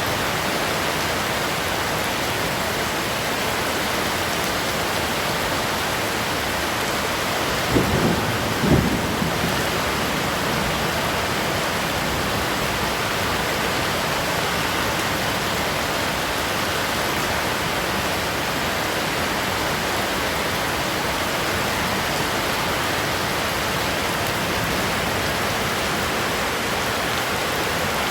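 Heavy rain falling steadily, a dense even hiss. About a third of the way in there is a brief low double thump.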